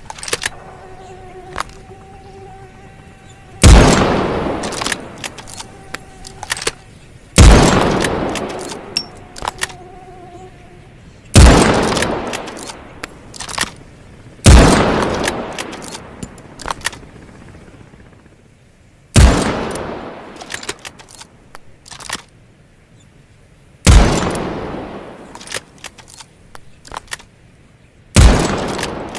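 Snider-Enfield Mark II rifle, a single-shot .577 breech-loader, fired seven times about four seconds apart. Each shot echoes and dies away over two to three seconds, with sharp clicks and knocks in the pauses between shots. In the first ten seconds a buzzing hum at a steady pitch sounds in the gaps.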